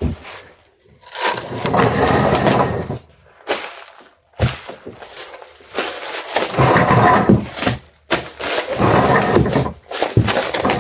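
Packaging material being handled and crinkled while an order is wrapped, in several noisy, crackly bursts of a few seconds each with a few sharp clicks between them.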